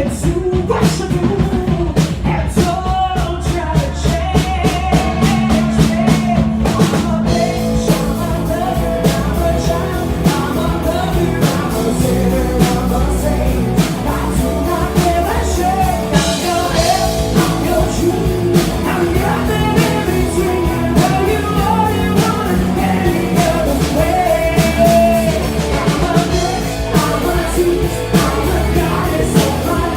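Live rock band playing: a drum kit and bass drive a full, loud band sound, with singing over it.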